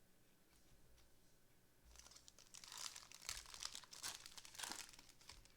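Foil wrapper of a trading card pack being torn open and crinkled, with a stretch of rustling and crackling between about two and five seconds in.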